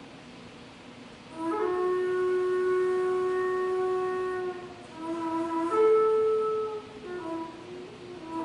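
Daegeum, the large Korean transverse bamboo flute, playing long held notes in slow succession. A note slides up into a long sustained tone about a second and a half in, then a note steps up to a higher one, and a shorter lower note follows near the end.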